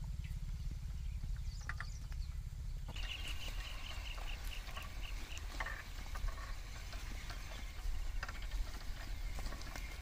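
Pair of bullocks pulling a wooden plough through dry, cloddy soil: scattered crunches and knocks of breaking clods and hooves over a steady low rumble. A rapid run of high chirps comes about three seconds in.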